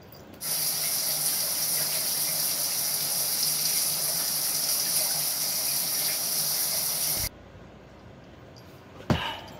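A steady, loud rushing noise with a faint low hum under it, starting and stopping abruptly; a single sharp knock follows near the end.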